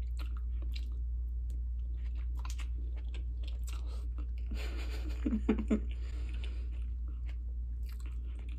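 Chewing a bite of peeled boiled egg dipped in butter sauce: many small mouth clicks and smacks, with a brief hummed vocal sound about halfway through. A steady low hum runs underneath.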